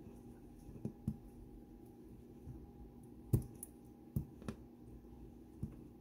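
Scattered sharp metal clicks and taps, about six, the loudest a little past the middle, as a small tool works at the retaining clip of a Dom Sigma pin-tumbler lock cylinder to take it apart.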